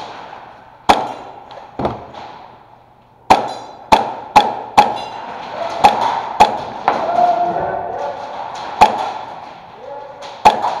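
Airsoft guns firing in an indoor close-quarters game: about ten sharp, irregularly spaced cracks and impacts, with a cluster of quick shots a third of the way in.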